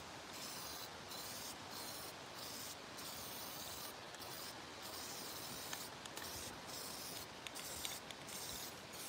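Aerosol spray-paint can hissing in a run of short sprays, broken by a dozen or so brief pauses. The can is nearly empty.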